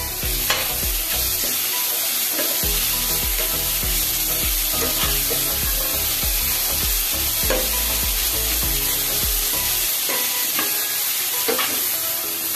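Grated raw mango and tempering sizzling in hot oil in a stainless steel pan while a metal spatula stirs and scrapes the pan. The sizzle is a steady hiss, broken by irregular scraping strokes.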